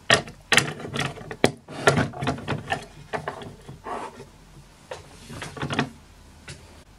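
Handling noise from a plastic toy playset and figure: a series of irregular clicks and knocks as the figure is moved through the playset's hinged plastic door. The knocks come thickest in the first two seconds and thin out before the end.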